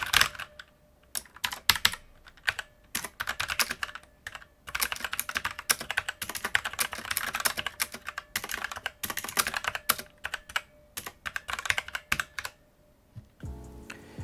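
Typing on a Gaming Freak MXRGB9 mechanical keyboard fitted with a mix of Outemu brown switches on the letter keys and Outemu blue switches elsewhere. Runs of fast key clacks are broken by short pauses. The typing stops about 13 seconds in, and background music starts.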